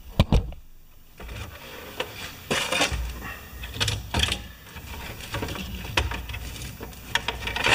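Hard plastic parts of a Fisher-Price parking garage toy knocking and clattering as they are handled and moved, with a few sharp clicks scattered through.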